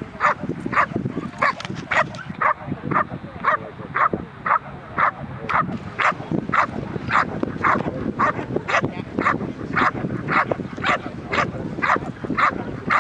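Dog barking over and over at a steady pace, about two barks a second.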